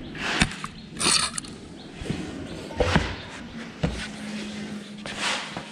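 Handling noises from a petrol chainsaw being set on a rubber mat and braced underfoot: a handful of sharp knocks and a few short rustling scrapes, with no engine running.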